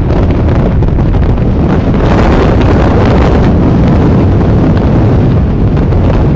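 Sea waves washing on the shore, with strong wind buffeting the microphone in a heavy, continuous rumble. The hiss of the surf swells from about two seconds in and eases again a little before the end.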